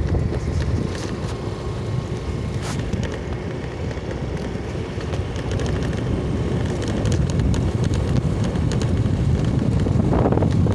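Wind buffeting the microphone during an open-air ride on a moving vehicle, over a steady low rumble from the vehicle and the road.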